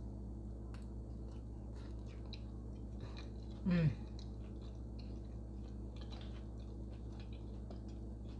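A person chewing a mouthful of food, with many small wet mouth clicks and one short falling 'mm' from the voice about a third of the way in. A steady low hum runs underneath.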